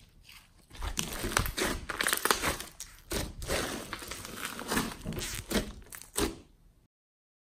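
Hands squeezing and poking thick glossy slime mixed with clay and foam beads, making a dense run of wet crackles and pops from about a second in. The sound cuts off suddenly near the end.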